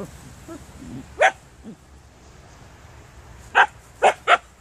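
Siberian husky giving short, sharp barks: one about a second in, then three in quick succession near the end.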